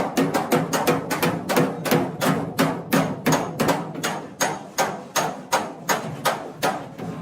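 Hand hammer beating car body sheet metal in panel-beating repair: a fast, even run of sharp strikes, about four to five a second.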